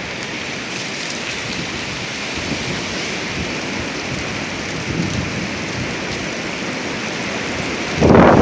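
Strong gusty wind rushing with a steady, rain-like hiss, then a loud gust buffeting the microphone near the end.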